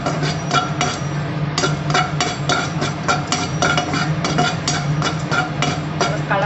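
Metal spatula scraping and knocking against a nonstick kadai while stirring sesame seeds as they dry-roast, with sharp ringing strokes at about three a second and a brief pause about a second in. A steady low hum runs underneath.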